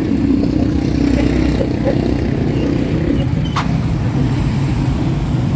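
Street traffic of motorcycle-sidecar tricycles and motorbikes, their small engines running in a steady low hum, with one sharp click about three and a half seconds in.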